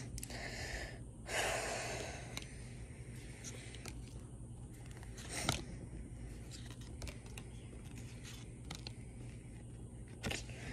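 Faint handling of Pokémon trading cards: soft slides and light clicks as cards are flipped through, with a louder rustle about a second and a half in and a sharp click about halfway.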